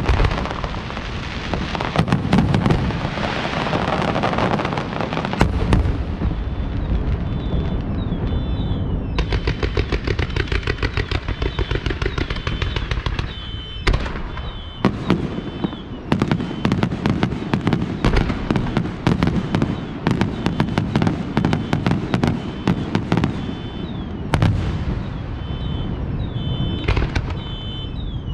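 Aerial fireworks display: a dense barrage of shell bursts and crackle, then rapid-fire volleys of sharp bangs, several a second, from about six seconds in.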